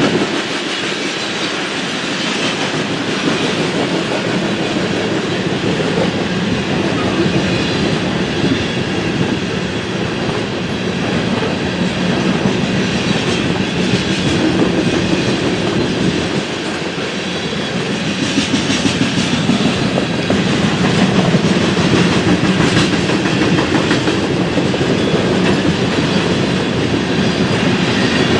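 BNSF freight train rolling past, the steady noise of its cars' steel wheels running on the rails, growing louder about two-thirds of the way through.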